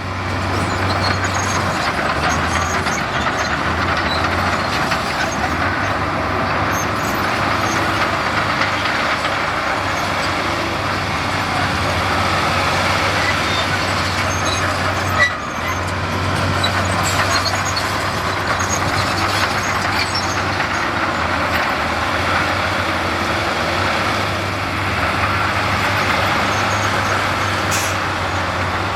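Heavy diesel construction machinery running steadily: a low engine hum under a dense, even wash of machine noise. There is a brief click and dip about halfway through.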